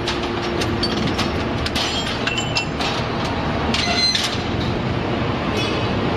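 Scrap metal baler-shear working: a steady heavy mechanical din with scrap metal clinking, grinding and scraping as it is pressed and cut, and brief high metal squeals about two and a half and four seconds in.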